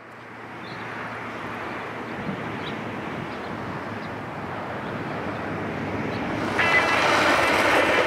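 Skateboard wheels rolling over concrete, a steady rushing noise that grows gradually louder. About six and a half seconds in it jumps louder and a thin high whine joins it.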